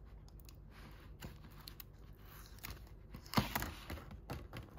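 Clear plastic film being peeled off a black plastic takeaway food tray: scattered crinkling crackles, loudest in a burst about three and a half seconds in.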